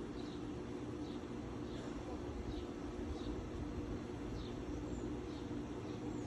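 A small bird chirping repeatedly, short high downward chirps about once or twice a second, over a steady low machine hum.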